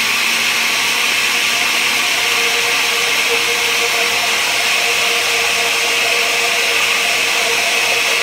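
Countertop blender running at one steady speed, blending a thin sauce in its jar.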